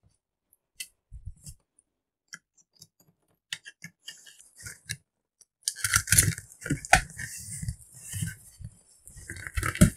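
A large cardboard parcel being opened by hand: a few scattered taps and scrapes, then from about six seconds in a dense rustling and crackling of cardboard flaps and brown packing paper.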